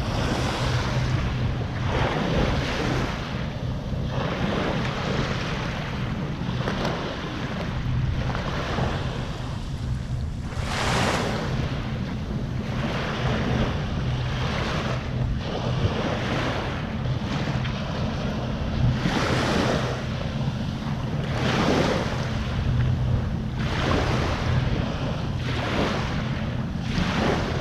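Waves washing up on a beach every few seconds, with wind on the microphone and a steady low hum underneath.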